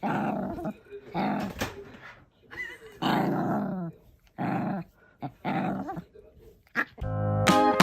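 A dog growling in a run of short bursts, about one a second. Music starts near the end.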